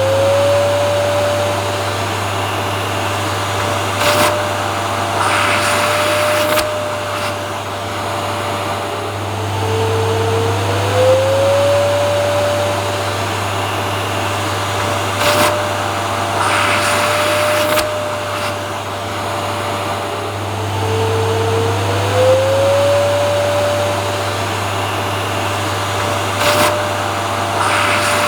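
Vacuum cleaner running steadily with a low hum and a motor whine that glides up in pitch and holds. Short knocks and a brief rush of noise come in, and the whole pattern repeats about every eleven seconds, like a loop.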